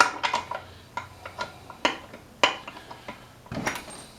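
Metal hand tools clinking and knocking against an engine block: a string of sharp, irregular clinks about half a second to a second apart, with a louder cluster near the end.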